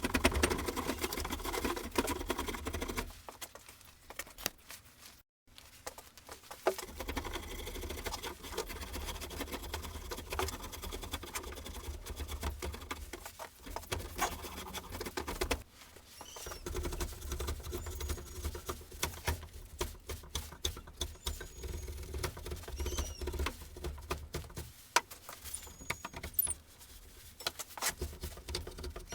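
Dry, scratchy scraping and rasping of wood as the end of a wooden tool handle is tapered by hand, worked in stretches with short pauses between them.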